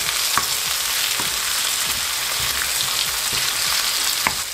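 Chopped tomatoes frying in hot oil with an onion, ginger and garlic masala, a steady sizzle with a few sharp clicks scattered through it.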